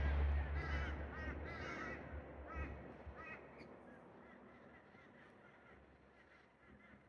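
A bird gives a quick run of short, harsh calls about a second in, then a couple of single calls, each fainter than the last. A low rumble underneath dies away by about three seconds in.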